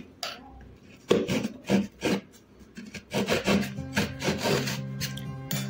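A hacksaw blade sawing through the hard casing of a large sky-shot firework in uneven back-and-forth strokes, finishing the last part of the cut. Background music with steady low notes comes in about halfway.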